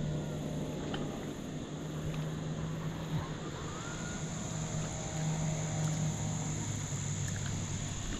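Steady low drone of a distant engine, its pitch wavering slightly, with a few faint clicks and short chirps over it.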